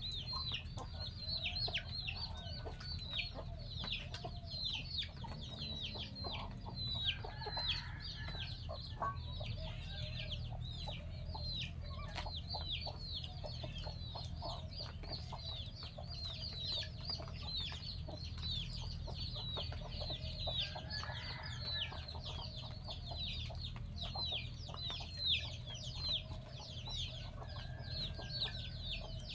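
Chickens in a yard: a steady run of high, falling peeps, about three a second, with low clucking now and then and scattered soft clicks.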